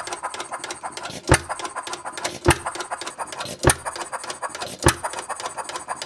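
1/3-scale Galloway 5 HP water-cooled hit-and-miss model engine running, firing with a sharp pop about every 1.2 seconds, four times here, with light rapid clicking of its mechanism between the firings.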